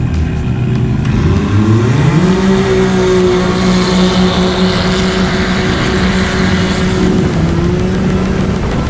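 Can-Am Maverick X3 Turbo side-by-side engine at full throttle off a drag-race start. The revs climb quickly about a second in, then hold at a steady high pitch down the strip, with a brief dip near the end.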